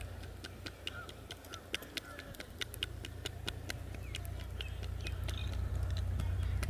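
Quick, light, sharp taps, roughly three to five a second and not quite even, from hands tapping during a head massage, over a steady low rumble.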